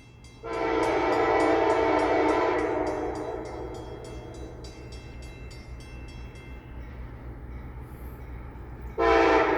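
CSX freight locomotive's air horn: one long blast starting about half a second in and fading away by about three seconds, then a second blast near the end, over a steady low rumble.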